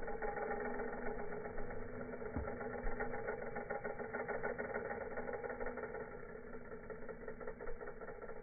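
Vacuum cleaner motor running, slowed down so its whine becomes a low, rough, rapidly pulsing drone with a few steady tones. It grows slightly quieter toward the end.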